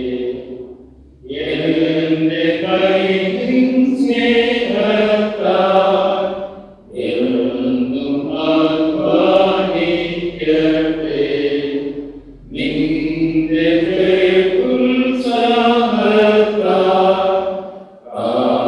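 A church hymn being sung in slow phrases of about five seconds each, with short pauses for breath between them.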